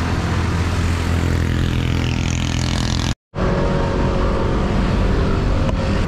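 Steady road traffic noise with a heavy low rumble, heard while riding along a highway. The sound cuts out completely for a moment about three seconds in.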